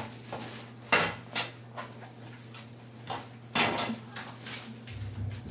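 A large striped beach umbrella being handled and opened: a few sharp clacks from its pole and frame, the loudest about a second in and again past three and a half seconds, with a couple of lighter knocks between.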